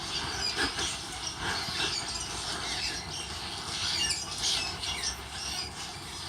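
Small birds calling from their colony of mud nests under a pier: many short, high chirps and twitters overlapping. A low steady background rumble runs underneath.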